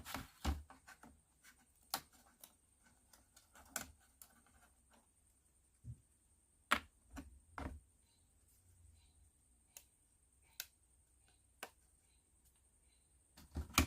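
Small plywood kit parts being handled and fitted together: light, irregular clicks and taps of wood on wood and on the work surface, a few louder knocks about halfway through.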